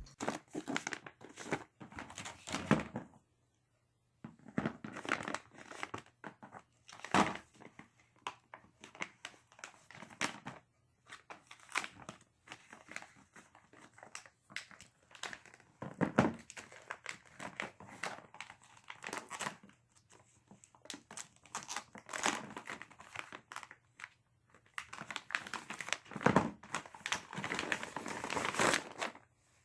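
Packaging crinkling and rustling as it is handled, in irregular bursts with short pauses between them.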